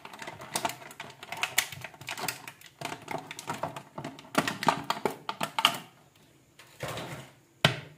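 Thin clear plastic packaging crinkling and crackling in a quick run of small clicks as a neckband earphone set is worked out of its moulded tray. The crackling thins out about six seconds in, with one sharp click near the end.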